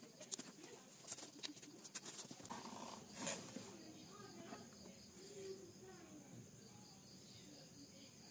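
Faint clicks and taps of wooden pencils being handled and knocked together, with a louder knock about three seconds in. Faint wavering calls can be heard in the background in the middle.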